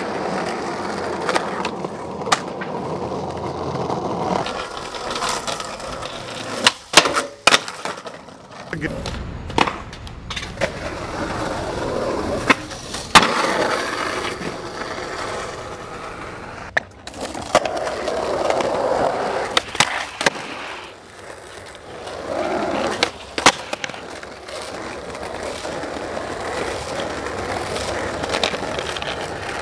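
Skateboard wheels rolling on asphalt and concrete, with sharp cracks of the board popping and landing several times. The loudest cracks come about a quarter of the way in and again near the middle.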